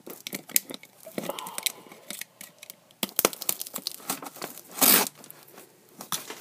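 Fingernail scratching and picking at clear packing tape on a cardboard box: short scrapes and clicks, with a louder rip of tape tearing loose about five seconds in.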